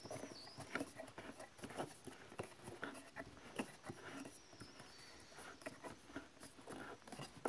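Plastic vise of a toy workbench being cranked shut on a plastic board: faint, irregular clicking and rubbing of plastic parts.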